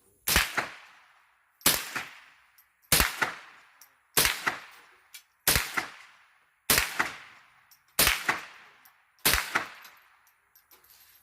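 Gunshots at a shooting range: eight shots fired at a steady pace, about one every 1.3 seconds, each followed by a short echoing tail.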